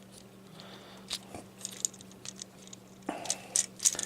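Plastic parts of a Transformers deluxe action figure clicking and scraping as they are rotated and pushed into place by hand: a few scattered clicks, then a quick cluster of clicks near the end.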